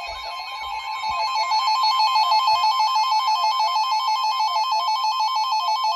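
Weather radio receiver's electronic alert alarm, marking an incoming warning. A repeating rising-and-falling sweep changes about a second in to a fast two-note warble, which keeps going steadily.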